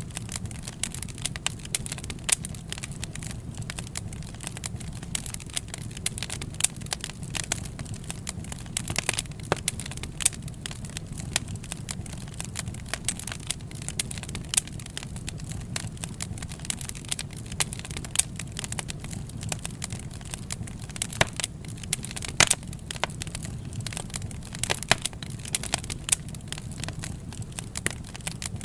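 Wood fire burning in a fireplace: a steady low rush of flame with frequent, irregular crackles and sharp pops from the burning logs.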